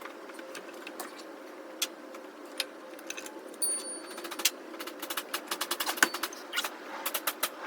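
Metal hand tools and parts clinking and clicking during water pump work on a C5 Corvette engine, with a few ringing clinks and a fast run of clicks in the second half, over a steady hum.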